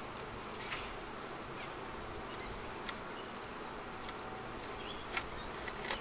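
Honeybees buzzing around an opened hive, a steady hum, with a couple of light knocks from the wooden hive boxes being set back in place near the end.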